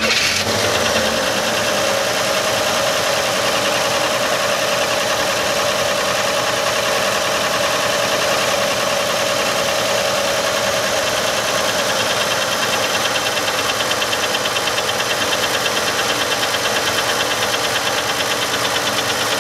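Old Chevy Nova engine idling steadily with the hood open, freshly revived after sitting for years, while its carburetor is adjusted with a screwdriver.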